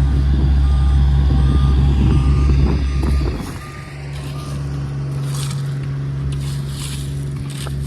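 Diesel engine of heavy paving equipment running with its backup alarm beeping. About three seconds in, the engine falls to a quieter, steady idle and the beeping stops. Short bursts of noise follow later.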